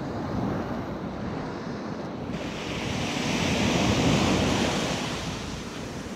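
Ocean surf on a sand beach: a small wave swells to its loudest about four seconds in as it breaks and washes up the shore, then eases off.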